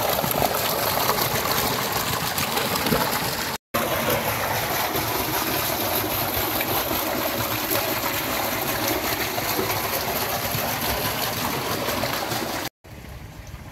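Tubewell outlet pipe discharging a heavy jet of irrigation water into a concrete tank: a steady rush and splash of falling water. It breaks off briefly about three and a half seconds in, and near the end drops to a quieter flowing sound.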